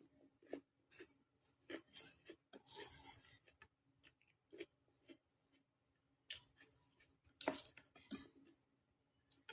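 Faint eating sounds over a bowl of meatball soup: scattered soft clicks and taps of utensils with chewing, a short rustling noise about three seconds in, and a cluster of louder clicks about three-quarters of the way through.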